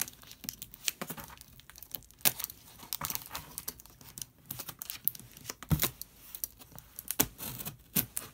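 Box cutter slicing through packing tape and cardboard along the edge of a shipping box, a string of short, irregular scratches and ticks with a few louder snaps.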